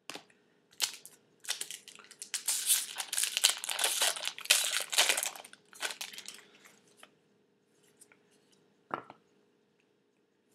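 A trading-card pack's wrapper being torn open and crinkled in the hands, a few seconds of dense crackling that then thins out, with a single light knock near the end.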